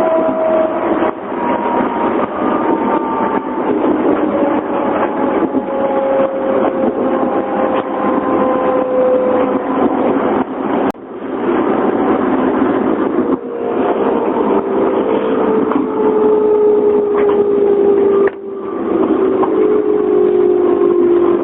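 811 series electric train's externally-fanned traction motors whining under braking. Several tones fall slowly and steadily in pitch as the train slows. The motors give the jet-like sound that counts as abnormal noise for these motors, with brief drops in loudness four times.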